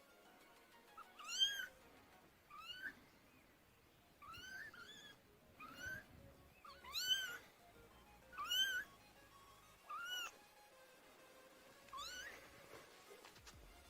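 Kitten mewing repeatedly: about eight short, high-pitched calls that rise and fall, spaced a second or two apart, typical of kittens calling for their mother.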